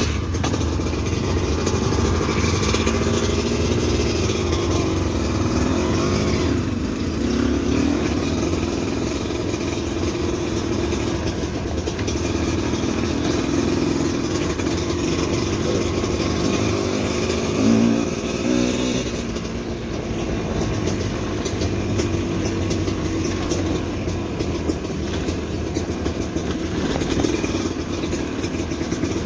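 Motorcycle engine running on a rough trail, its pitch rising and falling with the throttle, over a continuous low rumble.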